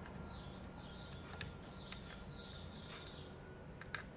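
Faint small clicks of metal tweezers and a soldering iron tip against a laptop motherboard as a MOSFET is desoldered, over a low hum. Short high chirps repeat faintly in the background, about twice a second.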